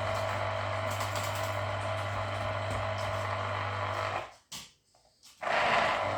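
Electric citrus juicer running with a steady motor whirr and low hum as lemons are pressed onto it. It cuts out just after four seconds in and starts again about a second later.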